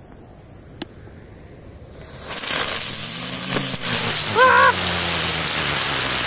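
An Allevi 'fiorellino gigante' ground-spinner firecracker catches after its fuse, with a sharp click a little under a second in. From about two seconds in it burns with a loud, steady hiss of spraying sparks, over a low hum that slowly drops in pitch. A short rising-and-falling tone sounds about halfway through.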